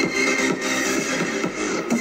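Electronic dance music with a steady beat of about two beats a second and little deep bass, playing through a small homemade PVC-pipe Bluetooth speaker.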